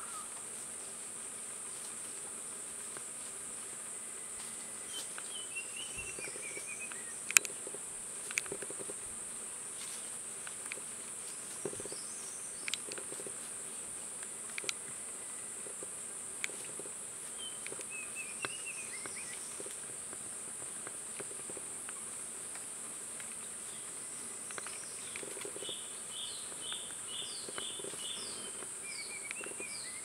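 A steady, high-pitched insect drone, with short phrases of distant birdsong now and then and scattered sharp clicks and rustles of dry leaf litter, fitting a rusty-cheeked scimitar babbler turning over leaves as it forages.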